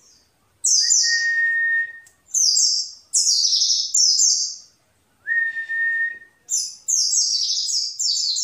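Pleci (white-eyes, Zosterops) singing: short bursts of rapid, high twittering that run together into continuous chatter near the end, with two long, steady whistled notes mixed in.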